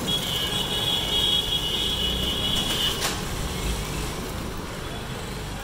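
A high-pitched steady electronic beep held for about three seconds, stopping with a click, over a low street rumble.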